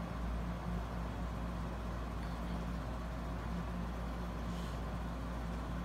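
Steady low rumble with a faint constant hum, no speech.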